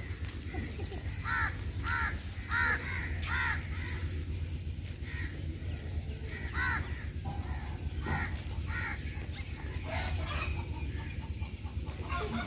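Short animal calls, repeated in runs of about two a second, over a steady low hum.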